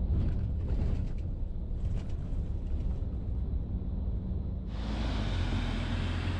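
Steady low rumble of a running vehicle, joined about three quarters of the way through by a loud rushing hiss.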